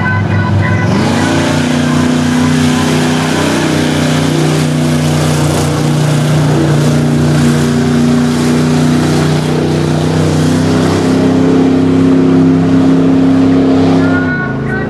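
A lifted Chevrolet pickup mud truck's engine revs up hard about a second in and is held at high revs as it drives through the pit. The rush of spinning tyres and flung dirt runs over it for most of the run. The revs drop off sharply near the end.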